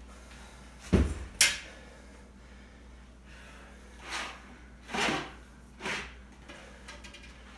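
A weighted bag set down on a hard floor: a heavy thud about a second in, followed closely by a sharp knock. Three softer, short noisy sounds follow about a second apart.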